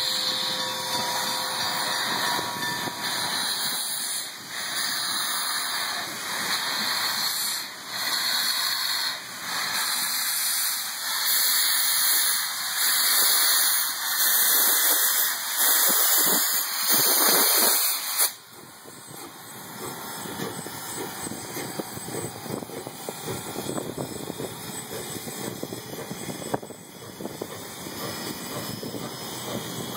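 Milwaukee Road 261, a 4-8-4 steam locomotive, pulling away with its cylinder cocks open: loud steam hiss that swells and dips in a slow rhythm with the drivers. About 18 seconds in the hiss stops abruptly, leaving the quieter rolling rumble and clatter of passenger cars going past.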